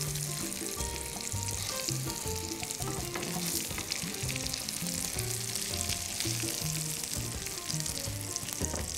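Potato-and-cheese patties sizzling and crackling as they fry in melted butter, while silicone spatulas turn them over in the pan. Soft background music plays underneath.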